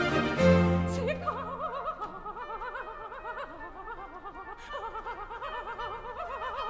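Soprano singing an unaccompanied coloratura passage in a baroque opera aria: quick, bouncing runs of notes. It follows an orchestral chord that dies away after about a second and a half.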